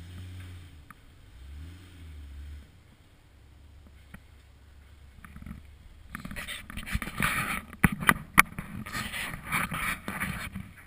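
Off-road Jeep's engine revving up and down at low speed, then about six seconds in a louder, rougher stretch of engine working under load as it climbs the trail, with several sharp knocks near the middle of that stretch.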